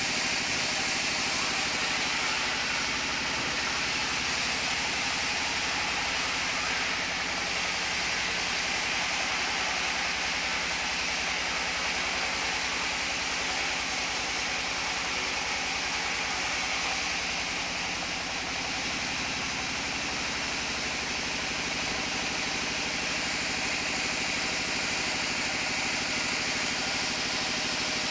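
Large vertical band saw running and ripping planks of mango wood fed through by hand: a steady, continuous cutting noise from the blade in the timber, with the machine running underneath.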